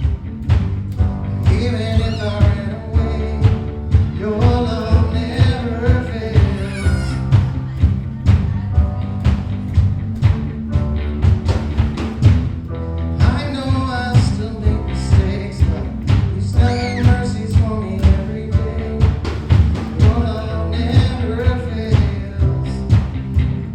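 Worship band playing a song with a steady drum beat, a voice singing in phrases over it.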